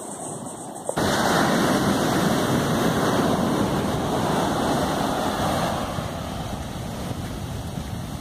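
Sea surf rushing and washing, with wind buffeting the microphone. The noise jumps suddenly louder about a second in and eases somewhat near the end.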